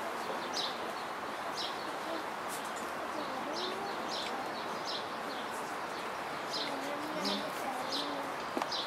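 A small bird chirping, a short high note repeated over and over about once a second, over a steady outdoor hiss.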